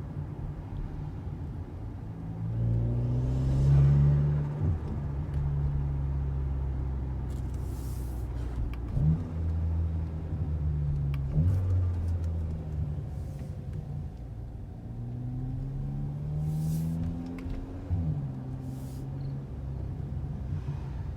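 Audi B9 A4's turbocharged engine, with a CTS Turbo intake and rear muffler delete, pulling through several rises in revs that drop off suddenly. After quick throttle lifts at low revs the turbo flutters with brief hissing chatters.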